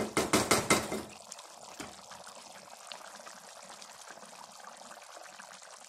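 Thick chicken curry gravy bubbling in a pan on high heat as it reduces, a fine crackle of small pops. A quick run of loud knocks in the first second.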